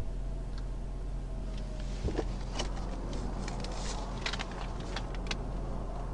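Cars passing on a highway beside a stopped patrol car, over a steady low hum, with a run of sharp clicks and taps between about two and five seconds in.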